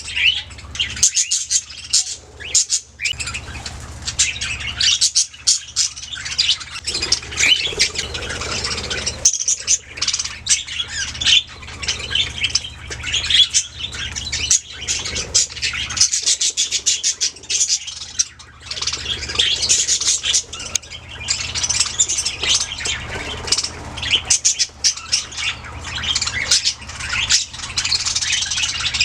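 Budgerigars chirping and warbling continuously, a dense overlapping chatter of several birds with sharp squawks mixed in. A low steady hum runs underneath.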